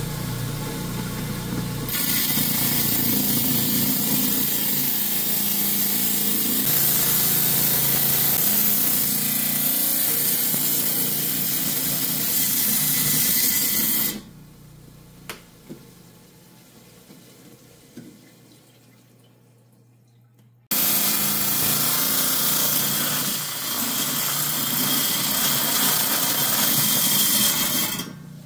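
10-inch lapidary wet saw's diamond blade grinding through a chalcedony and jasper stone, a steady loud hissing cut with water spray, the motor audible underneath. About halfway the cutting drops away to a quieter stretch with a few small clicks, then starts again suddenly and runs until just before the end.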